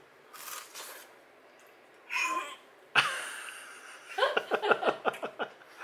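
A man eating a bite of very hot, freshly fried puffer fish: breaths, a sharp click about three seconds in, then a quick string of short vocal sounds, about six a second.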